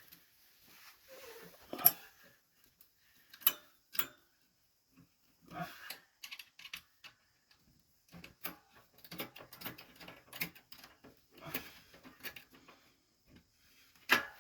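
Hand tools working on small metal screws: scattered sharp clicks and short metallic clatters at irregular intervals, with the sharpest clicks about two, three and a half, and four seconds in, and again near the end.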